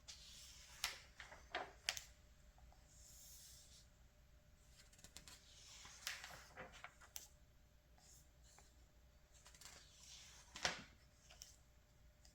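Glossy magazine pages being turned by hand: soft paper swishes and sharp flicks, with page turns around the second second, the sixth second and a louder one near the end.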